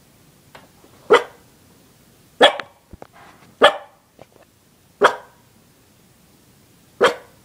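A small puppy barking: five short, sharp barks spaced about one to two seconds apart.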